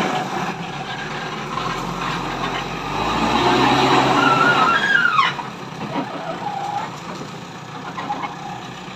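JCB backhoe loader's diesel engine running under load while it pushes soil, growing louder about three seconds in. About five seconds in there is a brief wavering whine that drops in pitch.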